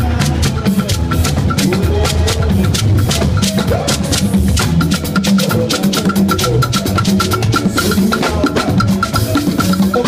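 Live percussion band playing a fast, steady groove: conga drums, a drum kit with cymbals, and a beaded gourd shaker (shekere), with a quick regular ticking running through the beat.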